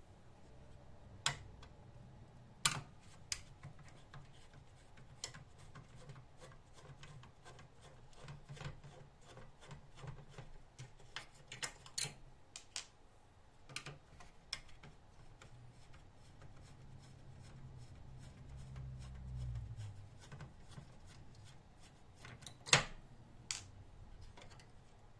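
Irregular small clicks, taps and light scraping of tools and parts being handled during electronics repair work, over a faint low hum, with a sharper click near the end.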